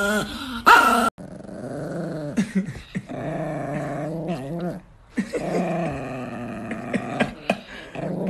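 Chihuahua growling in long, wavering growls that rise and fall in pitch, with short breaks about three and five seconds in. A louder, higher cry fills the first second before a sudden cut.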